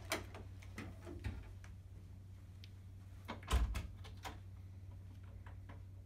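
Scattered light clicks and knocks, with a louder thump about three and a half seconds in, over a steady low hum.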